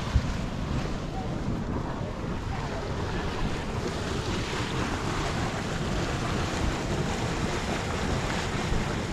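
Steady rushing, churning noise of a boiling mud pot gushing, with wind buffeting the microphone and a brief bump just after the start.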